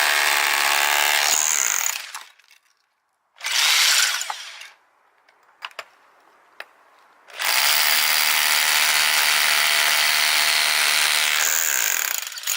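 Rotary hammer drill in hammer-drill mode, fitted with a keyed-chuck adapter, drilling a hole: it runs for about two seconds, stops, gives a short burst, then runs steadily for about five seconds and starts again right at the end. The adapter is dry and sounds grimy, which the owner means to cure with lube.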